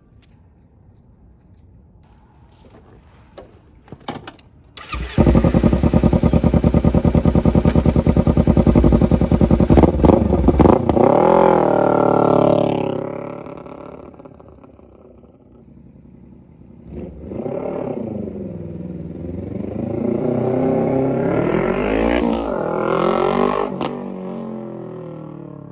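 Kawasaki Ninja 300 parallel-twin engine through a near straight-piped GP exhaust, revving as the bike is ridden around close by. It comes in suddenly and loud about five seconds in, after a few faint clicks. Its pitch climbs and dips, it fades away after about thirteen seconds, then it returns and builds again before easing off near the end.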